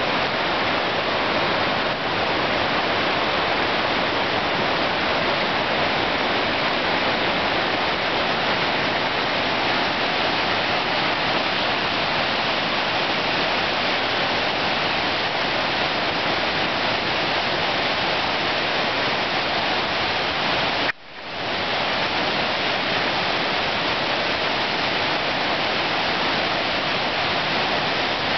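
The North Fork of the Nooksack River in flood, high and fast after heavy rain, rushing steadily. The sound briefly cuts out about three-quarters of the way through and returns within a second.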